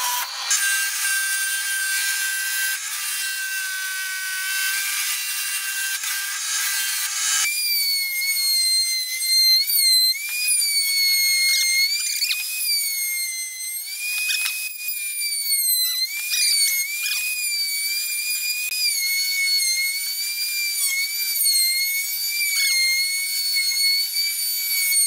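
A spindle sander runs steadily as a wooden board is pressed against its sanding drum. About seven seconds in it gives way to a table-mounted router, whose high whine dips and recovers in pitch again and again as the board's edge is fed past the bit.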